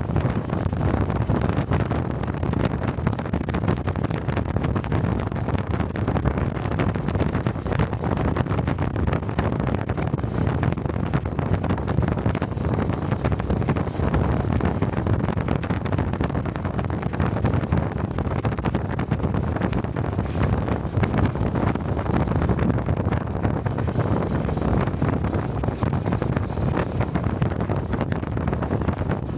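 Honda 125 cc Cub motorcycle's single-cylinder four-stroke engine running steadily while riding, with wind rushing over a helmet-mounted microphone.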